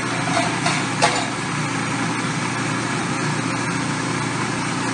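Food processor motor running steadily, blending cashews and water into a nearly smooth cashew cheese sauce. A sharp click about a second in.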